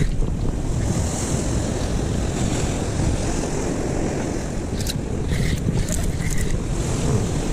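Wind buffeting the microphone over waves washing against sea rocks, as a steady rushing noise. A few short sharp clicks come about five seconds in.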